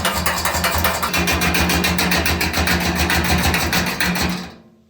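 Jiggle siphon being shaken hard to start diesel flowing: the ball valve in its end rattles in a fast, even rhythm, then stops suddenly near the end.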